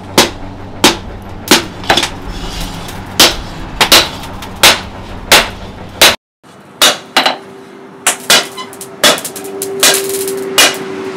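Hand hammer beating red-hot steel from a chainsaw blade on a small post anvil: sharp, ringing metal blows about one and a half a second, with a short gap about six seconds in, after which the blows come a little quicker.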